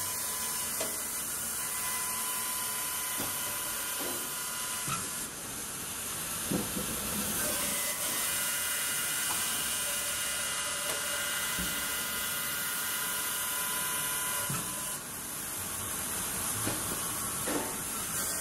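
Baker resaw bandsaw line running: a steady hiss-like machinery din from the saw, hydraulics and conveyors, with a faint steady whine and scattered knocks as cants move on the conveyors.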